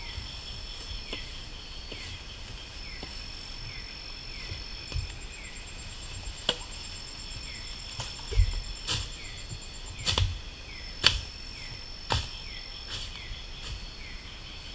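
Night insect chorus with steady high-pitched trills, over which come a series of irregular sharp knocks from work on the ground, the loudest about eight to eleven seconds in.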